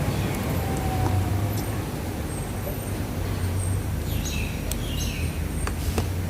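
Steady low hum, with a bird chirping a few times about four seconds in and a couple of light clicks near the end.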